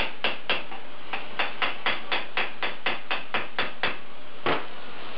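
Ball-peen hammer beating a torch-heated steel pipe end over a square steel tube held in a bench vise, to form it to shape. Quick even metal-on-metal blows about four a second, then a short pause and one last blow near the end.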